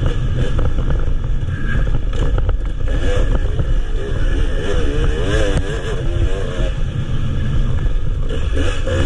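Enduro motorcycle engine heard from on board, revving up and down as the rider works the throttle along a bumpy dirt trail. There are a few knocks from the bike about two to three seconds in, over a steady rumble of wind and chassis.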